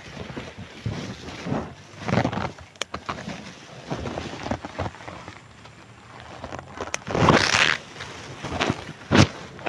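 Handling noise from a phone rubbing against denim clothing as it is carried: irregular rustling and scraping swells with a few sharp clicks, loudest about seven seconds in.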